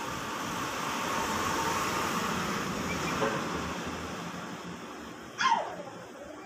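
A vehicle passing on the street, its noise swelling and then fading over the first few seconds. Near the end a dog gives one short yelp that falls in pitch.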